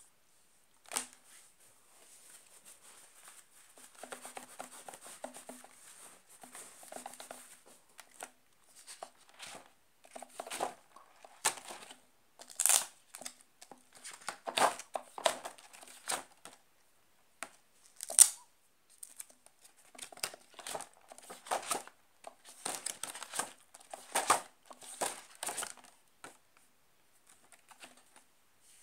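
Laminated number cards and binder pages being handled: irregular rustling of plastic-coated card with short sharp clicks and brief tearing sounds as cards are taken off and set onto a laminated page. The sharpest sounds come about a third and two thirds of the way through.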